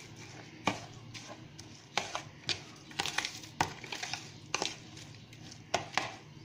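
A spoon stirring a dry mix of fine bulgur, spices and currants in a bowl, scraping and clicking against the bowl's side at irregular intervals.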